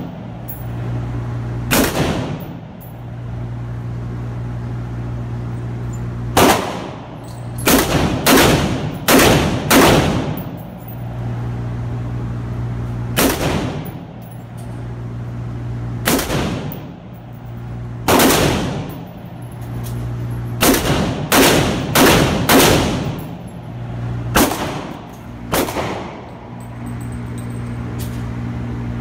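AR-15 rifle fired one shot at a time, about twenty shots spaced unevenly, sometimes in quick runs of two to four and sometimes with pauses of several seconds, each shot echoing off the walls of an indoor range. A steady low hum sits underneath.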